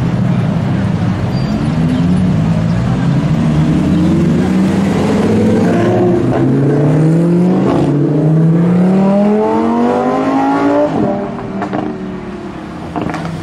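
Lamborghini Aventador's V12 engine accelerating hard past, its pitch climbing through successive gears with a sharp crack at each upshift. After a low rumble at first, the rising engine note breaks off near the end and the sound falls away.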